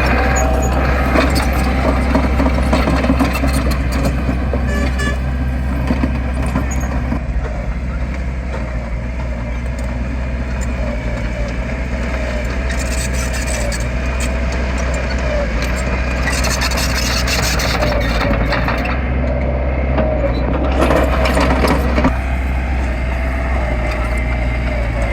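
Heavy diesel engine of earthmoving machinery running steadily under load, a constant low drone with scattered clanks.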